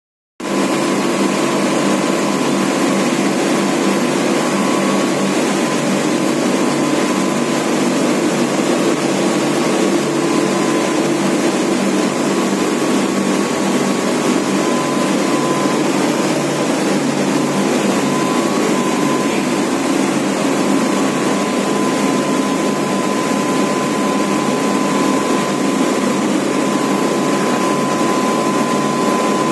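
Steady industrial machinery and air-duct noise from a waste-handling room with a fogging unit running: a loud, even, unbroken hum and rush of air with a thin steady whine over it.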